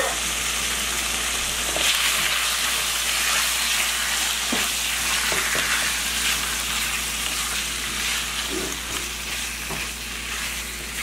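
Seasoned chicken breast strips sizzling in hot oil in a frying pan, a steady hiss, while a silicone spatula stirs them with a few soft scrapes and taps against the pan.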